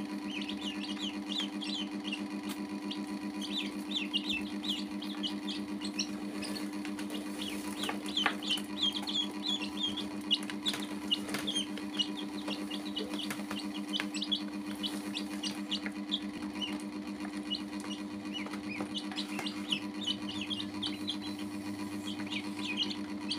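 Baby chicks and ducklings peeping continuously, many short high cheeps overlapping, over a steady low hum, with a few sharp taps.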